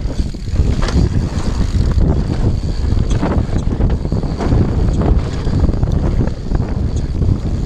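Wind buffeting the microphone of an action camera on a mountain bike ridden fast down a dirt trail, over the rumble of knobby tyres on packed dirt. Frequent short rattles and knocks from the bike run throughout.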